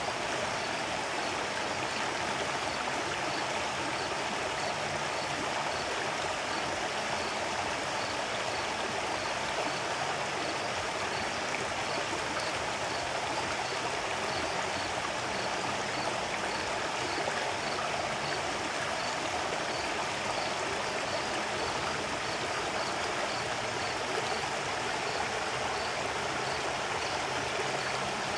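Shallow river at its low summer level rushing steadily over and around rounded boulders, a continuous even splashing and burbling of water through a rocky riffle.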